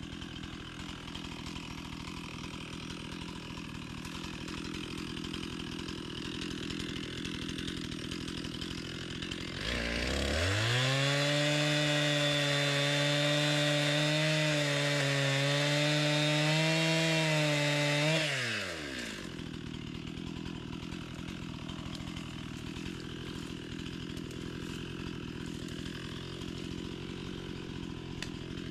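Two-stroke chainsaw idling, then revved up sharply about ten seconds in and held at full throttle for about eight seconds before dropping back to idle. Its chain needs sharpening.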